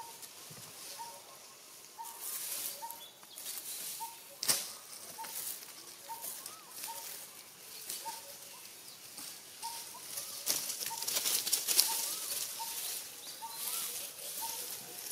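Dry fallen leaves rustling and crackling as macaques shift and crawl about on them, with a sharp crackle about four seconds in and a louder spell of crackling near the end. Behind it a bird repeats a short, even note about twice a second.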